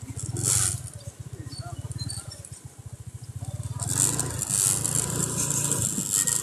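A small vehicle engine running at idle, a fast even putter, with a louder rushing noise coming in about four seconds in.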